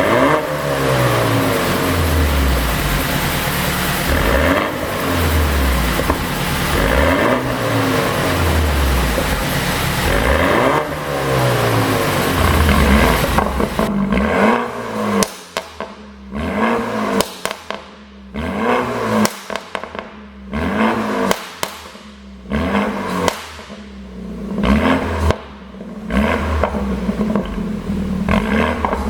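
BMW 428i's turbocharged four-cylinder engine and exhaust with a pop-and-crackle tune: for the first half the revs climb and drop again every two to three seconds, then a run of short throttle blips, each followed by sharp popping and crackling from the exhaust as the revs fall.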